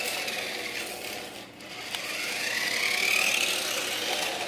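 Toy RC car's electric motor and gears whining as it drives, with a whine that rises in pitch about two seconds in and then fades.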